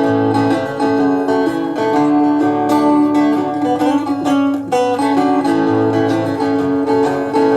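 Instrumental passage of a country song, led by acoustic guitar with other plucked strings, with no singing.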